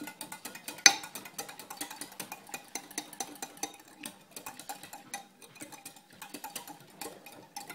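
A metal spoon stirring liquid in a glass Pyrex measuring jug, clinking quickly and irregularly against the glass, with one louder clink about a second in, while jelly crystals are dissolved in boiling water.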